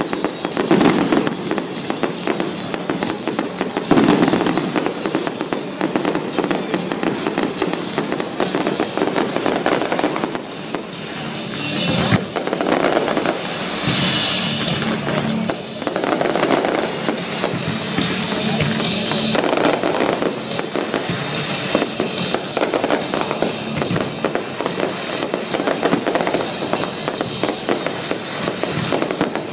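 Fireworks display: a dense, continuous barrage of bursts and crackling, with louder booms about a second in, about four seconds in and about twelve seconds in. Music plays from loudspeakers underneath.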